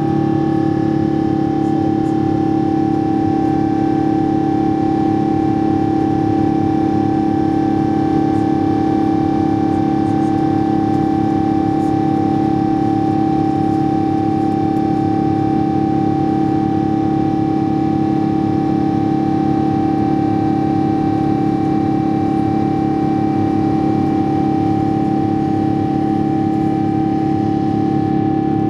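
Air France Boeing 777-200ER climbing after take-off, heard inside the cabin beside the wing: its GE90 turbofan engine runs at a steady climb setting. It makes a loud, even rush of noise with constant humming and whining tones on top.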